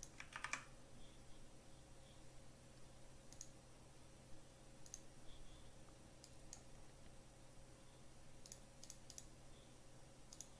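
Faint, scattered clicks from a computer keyboard and mouse over a low steady hum: a quick cluster of clicks at the start, then single clicks or small groups every second or two.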